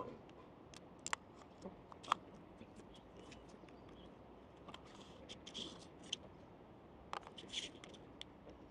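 Faint handling sounds of small plastic and card packaging: scattered sharp clicks and short rustles as a microSD card is unpacked from its box and case.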